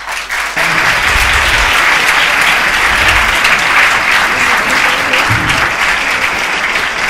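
Classroom audience applauding: dense, steady clapping that starts about half a second in and eases slightly toward the end.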